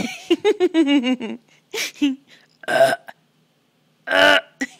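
A woman making loud fake burps, the loudest near the end. Between them a baby laughs in quick rhythmic bursts.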